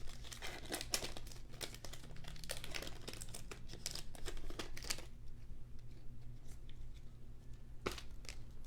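Wrapper of a basketball trading-card pack crinkling and tearing as it is ripped open, busy for about five seconds, then a single sharp click near the end.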